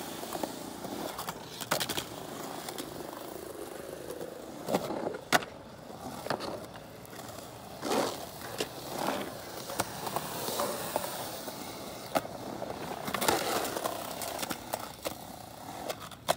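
Skateboard wheels rolling over concrete, with several sharp clacks of the board striking the ground scattered through.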